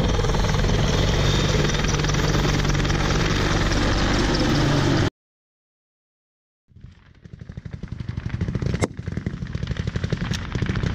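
Low-flying Apache attack helicopters passing, with steady rotor and turbine noise that cuts off abruptly about five seconds in. After a short silence, a rumble builds up with rapid even beating and two sharp cracks.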